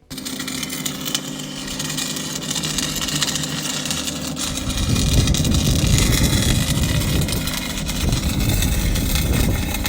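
CNC-ported Chrysler Hemi 265 straight-six engine running steadily, growing louder and rougher about four and a half seconds in.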